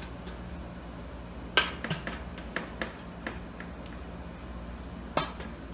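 Hog ring pliers clamping metal hog rings around the listing wire and seat springs of a bucket seat: a sharp metallic click about a second and a half in, a run of lighter clicks after it, and another sharp click near the end.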